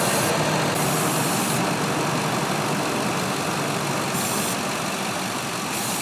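Ford F-150 engine idling steadily, heard up close. The engine is running lean on both banks (codes P0171 and P0174), from a suspected vacuum leak.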